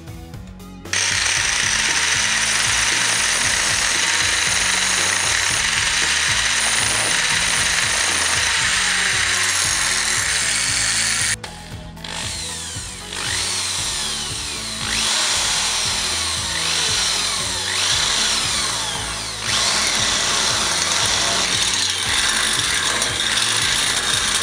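Electric drill with a twist bit boring into a steel angle clamped in a vise: a loud, steady whirring grind, briefly broken about halfway, after which several falling high tones sound as the bit cuts.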